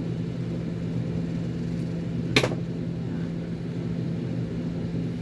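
A steady low mechanical hum, with one sharp click about two and a half seconds in.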